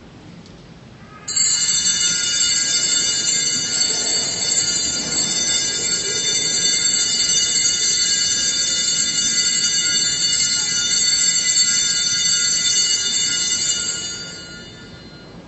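Altar bells rung without a break, marking the elevation of the Host at Mass: a loud cluster of high, steady bell tones that starts suddenly about a second in, holds, and dies away near the end.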